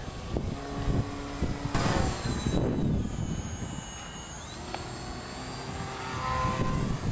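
Electric brushless motor and propeller of an RC park-flyer plane whining, the pitch dipping and then rising again midway as the throttle changes, with wind rumbling on the microphone.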